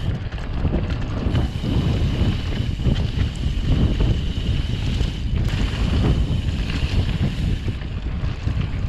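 Wind buffeting the microphone of a handlebar-mounted camera as a mountain bike rolls fast downhill on a dirt singletrack, with the tyres rumbling and the bike rattling and knocking over bumps.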